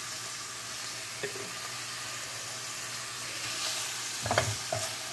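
Meatless chicken strips sizzling in olive oil in a stainless steel skillet. Near the end a wooden spatula stirs them, with a few sharp scrapes and knocks against the pan.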